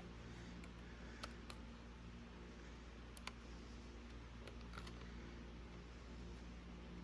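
Quiet, scattered small clicks and taps from handling a cassette Walkman's mechanism while a rubber drive belt is fitted around its pulleys, over a low steady hum.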